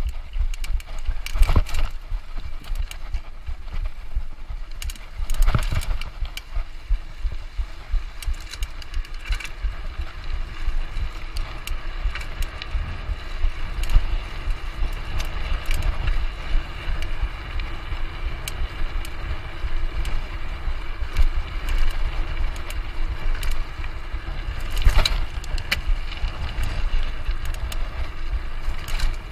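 Mountain bike being ridden over rough trail: a steady low rumble and rattle from the bike, with a few sharp knocks from bumps about a second in, about five seconds in and near the end.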